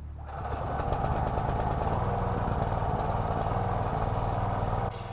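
Small gasoline engine of a towable backhoe working harder as the hydraulic controls are operated to dig. It rises from a low idle to a loud, steady run within the first second and drops back just before the end.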